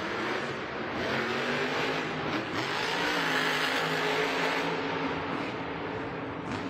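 Son-uva Digger monster truck's supercharged engine revving hard as the truck drives across the dirt arena floor, its pitch dipping and then climbing again.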